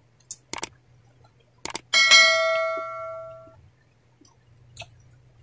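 Subscribe-button animation sound effect: a few quick clicks, then a single bright bell ding about two seconds in that rings out and fades over a second and a half. A faint steady low hum sits underneath.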